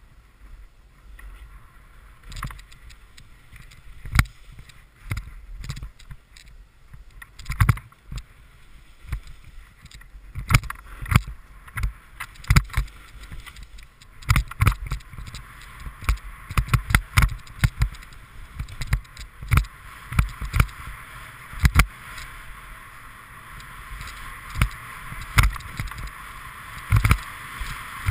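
Snowboard sliding over packed, wind-ruffled snow: a steady scraping hiss with frequent sharp knocks as the board and camera jolt over bumps. The hiss grows louder over the last few seconds as the run speeds up.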